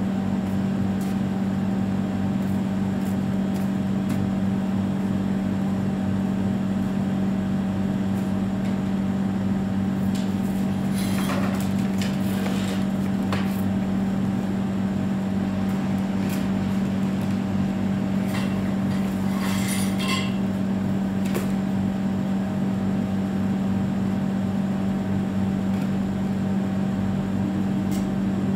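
Steady electric motor hum at an even level, with a few brief knocks and clatters from things being handled partway through.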